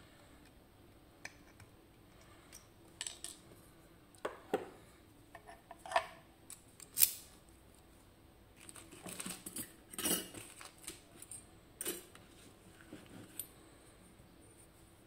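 FAB 3-star pin tumbler lock being taken apart by hand: scattered small metallic clicks, taps and short scrapes of its parts. The sharpest click comes about 7 seconds in, and a short run of rattling and scraping comes around 9 to 10 seconds in.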